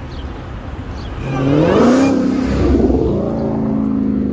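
Car engine revving up as it accelerates, its pitch rising twice and then holding steady.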